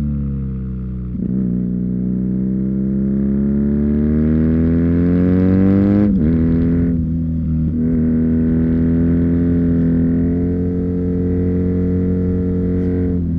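2019 BMW R nineT's air/oil-cooled boxer twin through a stock Akrapovic slip-on exhaust, heard onboard while riding. The engine pitch falls, then rises steadily for several seconds as it pulls, drops abruptly about six seconds in, and then holds fairly steady.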